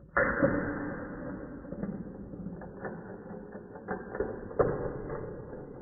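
Metal marbles rolling through a Gravitrax plastic marble run and along its rails: a continuous rolling rattle that starts suddenly, with several sharper clicks as the balls strike track pieces. The loudest clicks come at the start and about four and a half seconds in.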